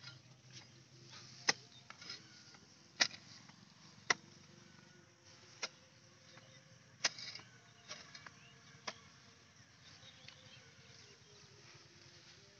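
A hand hoe chopping into wet, grassy soil: about seven separate strikes, a second or so apart, that stop about nine seconds in. A faint insect buzz runs underneath.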